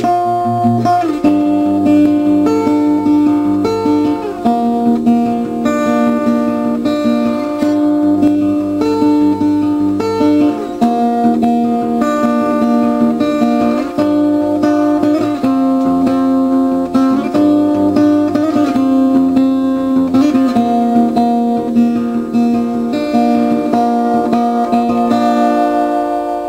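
Background music: acoustic guitar playing a plucked melody, fading out near the end.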